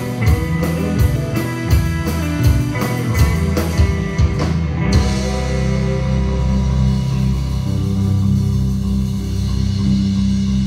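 Live rock band playing electric guitars, acoustic guitar, bass and drum kit. About five seconds in the drum beat stops, and the guitars ring on with long held notes.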